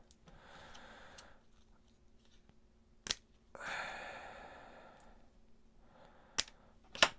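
Scissors snipping small diodes off their paper tape strip: a few sharp snips, one about three seconds in and two near the end, the last the loudest, between soft rustles of the tape.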